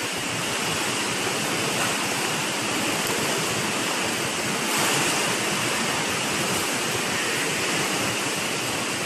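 Steady rushing of water in an aquarium's marine mammal pool, swelling slightly about halfway through.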